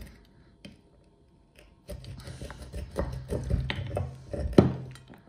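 Metal meat grinder parts being handled: the candy-caked auger scraping and knocking as it is worked out of the grinder's barrel. The first two seconds are fairly quiet. Then come a run of scrapes and knocks, the sharpest about four and a half seconds in.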